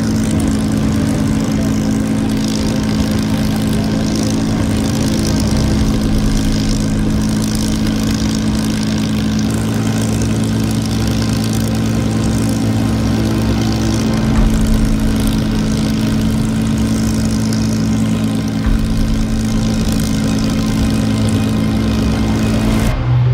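Supermarine Spitfire Mk IX's Rolls-Royce Merlin V12 engine idling on the ground, its propeller turning, a loud, steady, even drone.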